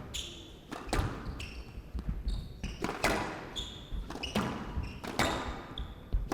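Squash rally: a hard rubber squash ball struck by rackets and smacking off the walls, with a sharp crack every half second to a second and short high squeaks of players' court shoes on the wooden floor in between.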